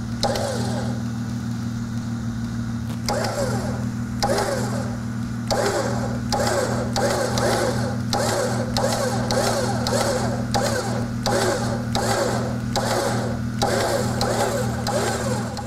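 Warn electric winch running, its motor and gearing pulling new synthetic winch rope onto the drum under light tension so that the first wraps lie tight. A rhythmic pulsing repeats about once or twice a second over a steady low hum, and it grows stronger after about five seconds.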